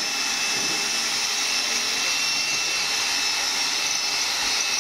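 Corded electric drill running steadily with a high whine while boring into a timber block.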